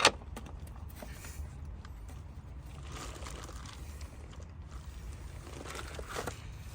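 A sharp click at the start, then faint metallic clicks and tool handling as a 10 mm bolt extractor socket is worked onto a stripped, rounded-off 10 mm bolt head.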